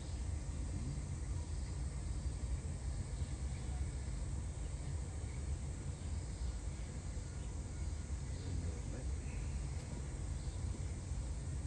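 Steady low rumble of outdoor background noise, with no distinct sound standing out.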